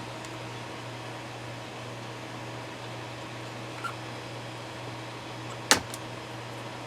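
Steady low electrical hum of workbench equipment, with a faint tick about four seconds in and one sharp click near the end.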